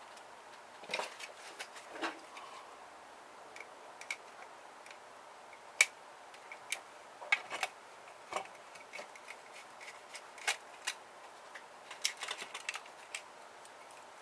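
Irregular light clicks and taps of a screwdriver working at screws and small parts in a plastic printer housing, with one sharper click about six seconds in and a quick run of clicks near the end.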